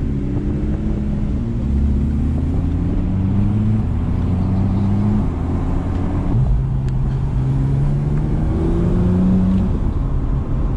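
Porsche 911 GT3's naturally aspirated flat-six, heard from inside the cabin under light acceleration. Its pitch climbs slowly through each gear and drops at several quick PDK upshifts, with one sudden jump up in revs about two-thirds of the way through.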